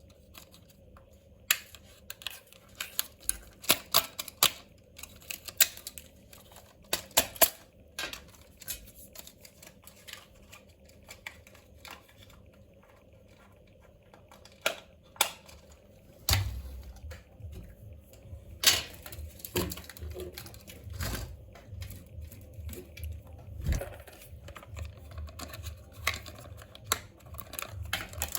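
Irregular clicks, taps and knocks of hands handling a toy car and its plastic packaging, with a low rumble joining about halfway through.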